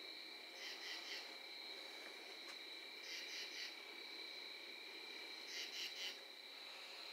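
Crickets chirping at night: a steady high trill runs throughout, while groups of three or four quick chirps repeat about every two and a half seconds.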